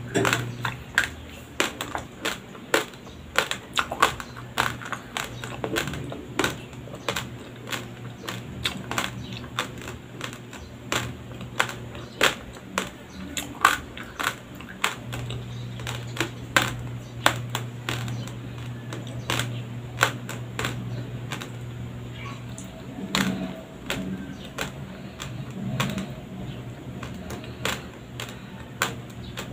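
Close-miked crunching of uncooked white rice grains being chewed: sharp, irregular crackling clicks, several a second, over a low steady hum.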